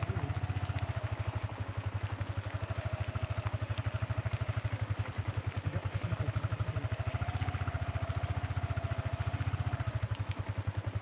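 Motorcycle engine running steadily, a fast, even low throb, with a faint whine above it that wavers slowly up and down.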